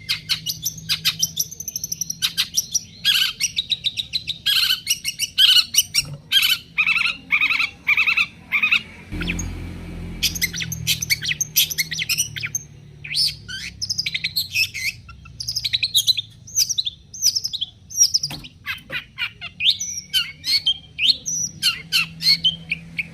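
Long-tailed shrike (cendet) singing: quick runs of short chirping and harsh notes, varied in pitch, thinning out for a couple of seconds a little before the middle.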